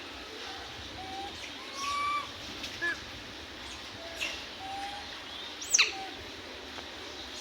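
Short high-pitched animal calls, a handful of brief flat or slightly falling notes, with one sharp falling squeal near the end being the loudest, over a steady outdoor hiss.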